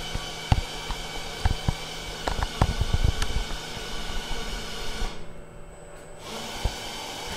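Steady hum and hiss of the treatment room's ventilation and equipment, made up of several fixed tones. Irregular clicks and knocks come through the first three seconds, and the hiss dips for about a second around five seconds in.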